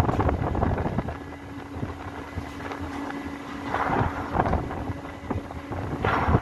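Wind buffeting the microphone over a low machinery rumble, with a steady hum from the harbour crane or ship's machinery that fades out past the middle and gusts swelling about four and six seconds in.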